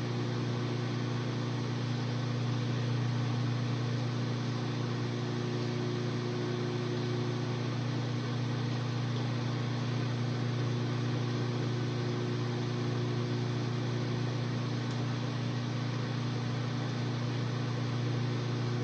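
Microwave oven running steadily, a constant low hum with a few steady tones above it, while it defrosts a frozen bottle of Gatorade.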